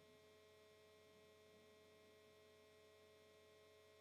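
Near silence: a faint steady electrical hum in the pause between spoken examples.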